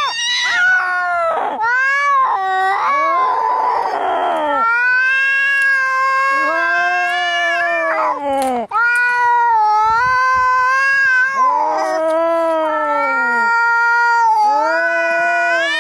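Angry cats yowling in a fight: a string of long, drawn-out caterwauls that waver up and down in pitch, each lasting a few seconds, with a rough, harsh noisy cry about three seconds in.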